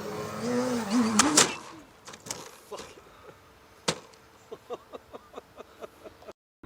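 Electric motor and propeller of an OMP Hobby 60-inch Edge 540 RC aerobatic plane whining with a wavering pitch, then a loud crash about a second and a half in as the plane hits the ground nose-first, and the motor falls silent. Scattered faint knocks and clicks follow.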